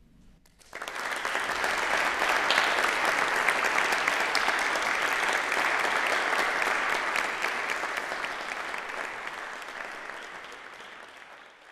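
Audience applauding, breaking out suddenly just under a second in, holding steady, then gradually fading away near the end.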